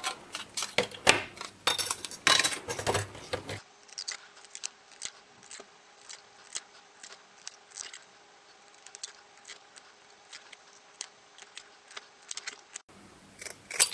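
Cheap IKEA scissors snipping through thin glass-fibre circuit boards: a run of sharp, crisp snips and cracks, several a second. Through the middle stretch the snips are quieter, with a faint steady hum under them.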